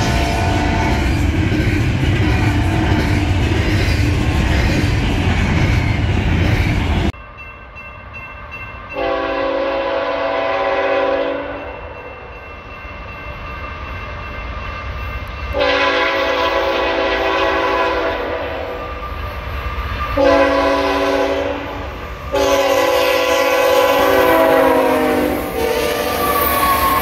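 Double-stack container train rolling past with a steady rumble and wheel clatter, which cuts off about seven seconds in. Then a diesel freight locomotive's multi-tone air horn sounds the grade-crossing signal, long, long, short, long, as the locomotives come up and pass close by.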